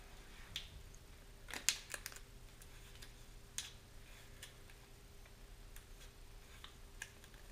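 Masking tape being pulled off its roll and wrapped around a rocket motor casing: faint scattered crackles and clicks, with the loudest cluster about two seconds in and a sharper one a little later.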